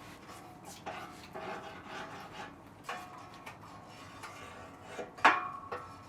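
Objects being handled in a workshop: rubbing and scraping with scattered light knocks, and one sharp clink a little past five seconds in.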